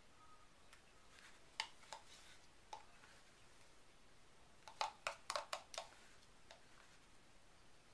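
Faint clicks and taps of a spatula against a plastic measuring jug as thick soap batter is scraped out into a mould. A few single taps come first, then a quick run of about six taps around five seconds in.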